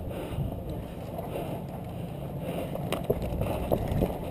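Low rumble of wind and movement noise on a head-mounted camera, with footsteps on packed dirt and a single sharp click about three seconds in.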